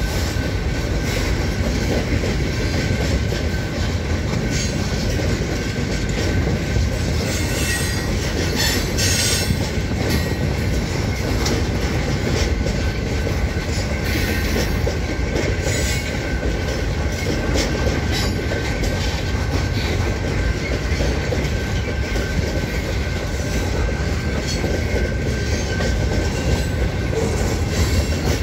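Freight train of boxcars rolling past at a grade crossing: wheels rumbling and clattering over the rails, with a thin steady high squeal from the wheels.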